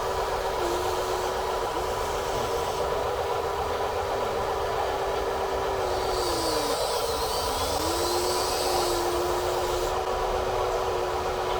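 Small electric motor and gearbox of an RC construction toy whirring: a steady whine that sags and picks up again several times as the throttle is eased and reapplied, over a constant whirring noise.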